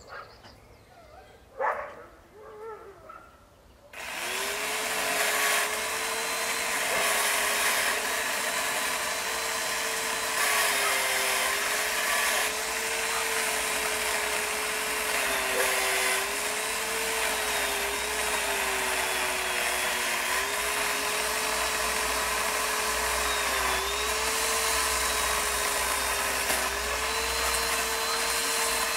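A power saw, up in the tree, starts suddenly about four seconds in and runs steadily. Its pitch sags briefly every few seconds as it loads up cutting the wood.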